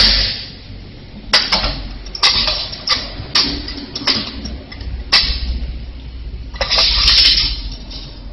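Metal clanks and rattling as a wire reel is fitted onto a steel tube frame: sharp knocks about once a second, each trailing off in a rattle, with a longer rattle about seven seconds in.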